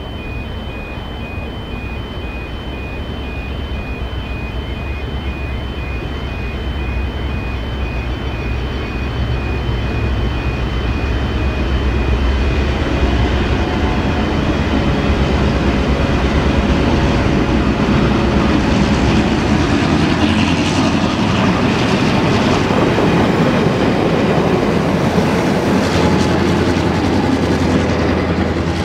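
A pair of 1960s EMD diesel-electric locomotives approach and grow steadily louder, their engines running with wheels rumbling and clattering on the rails, then pass close by near the end.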